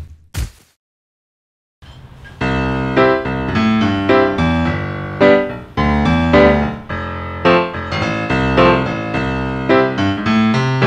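Piano-led background music that fades in about two seconds in, playing chords over a steady bass line, after one short hit at the very start.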